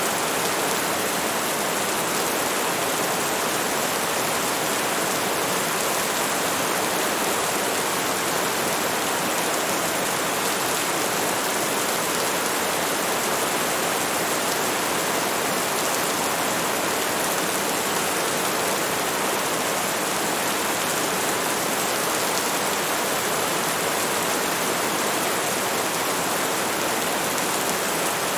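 Heavy rain: a steady, dense hiss with no single drops standing out and no let-up.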